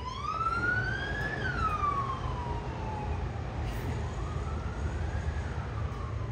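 Emergency vehicle siren wailing in slow rising and falling sweeps, two full cycles, over a steady low rumble.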